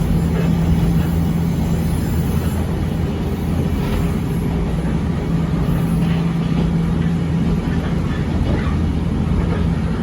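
Echizen Railway 5001 series railcar running at speed: a steady low rumble of running noise with a continuous low hum.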